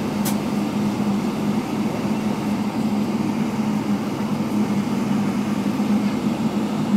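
Steady cabin noise of a Boeing 777-300ER taxiing, heard from inside the cabin: the hum of its GE90 engines at taxi power together with the air-conditioning, with a low drone and one sharp click just after the start.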